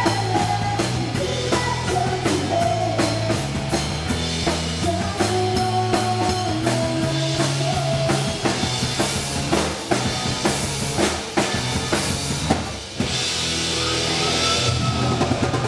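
Live rock band playing: a drum kit keeping a steady beat under electric guitars, with a woman singing the lead. Cymbal crashes wash over the second half, and the band drops back briefly about thirteen seconds in.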